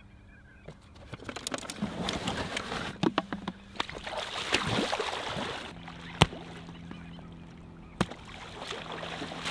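Waders sloshing and splashing through shallow marsh water as a person wades out, in uneven swishing steps. Two sharp clicks come in the quieter second half.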